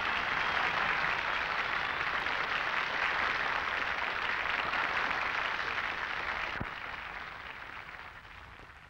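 Crowd applauding and cheering in a steady wash of noise that fades out over the last couple of seconds, with a single click about two-thirds of the way in.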